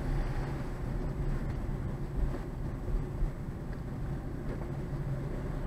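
Car driving: steady engine hum and road noise heard from inside the cabin.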